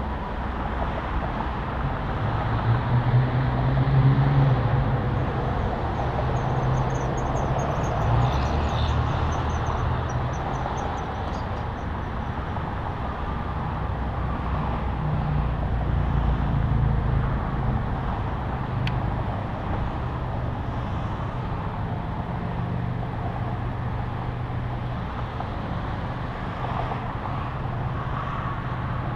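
Wind and tyre rush of a vehicle driving on a highway, picked up by a camera mounted outside on the hood, with a low engine and road drone underneath. The drone swells a few seconds in, then stays steady.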